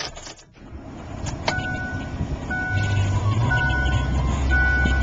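Ford F-150 engine cranking, catching and settling into a steady idle, heard from inside the cab. A high beeping tone repeats about once a second as it runs.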